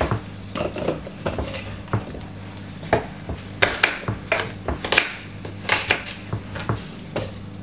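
Kitchen knife knocking on a wooden chopping board as an apple is cut, with pieces dropped into a plastic blender cup: irregular sharp knocks and clicks, a few a second at the busiest, over a low steady hum.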